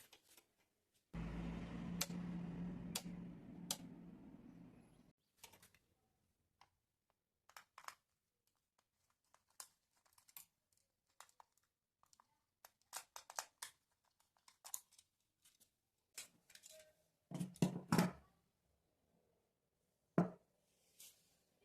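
A small electric motor runs for about four seconds and winds down, followed by scattered light clicks and knocks of small parts being handled.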